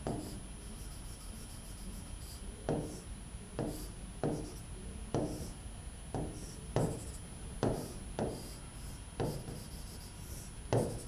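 Marker pen drawing on a whiteboard: a string of short taps and scraping strokes, roughly one a second, spaced irregularly as lines and resistor zigzags are drawn.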